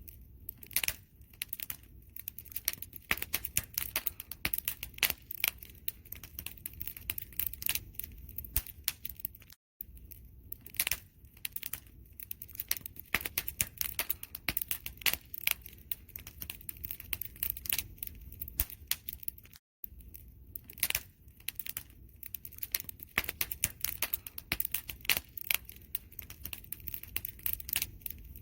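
Wood fire crackling and popping in a dense, irregular run of sharp snaps over a low steady rumble of flames. The sound cuts out for a split second twice, about ten seconds apart.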